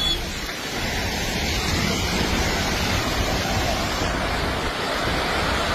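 Landslide of rock and mud moving downslope, giving a steady, dense rushing roar like a raging river.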